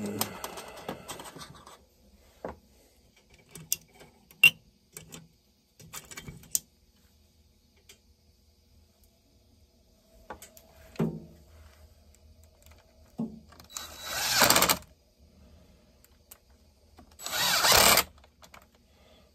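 Cordless drill running in two short spurts of about a second each near the end, driving bolts into a chainsaw during assembly, after a series of light clicks and knocks of tools and parts being handled.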